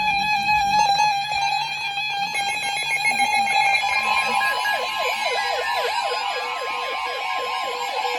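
Several NOAA weather radios sounding their alert alarms at once at the start of a new warning activation: a steady, shrill alert tone. About four seconds in, a rapid train of repeated chirping alarm tones from more radios joins it.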